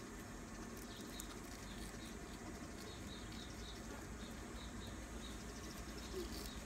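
Small birds chirping in short, high, repeated notes, faint over a low steady outdoor background.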